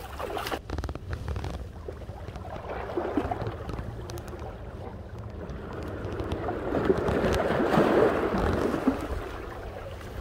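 Wind buffeting the microphone over waves washing in, with a quick run of clicks about a second in. The noise swells and is loudest around seven to nine seconds.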